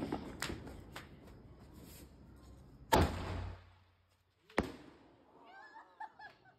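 A consumer aerial firework shell fired from a tube. First a few sharp crackles as the fuse burns, then a loud launch bang about three seconds in, and a second sharp bang about a second and a half later as the shell bursts into red stars.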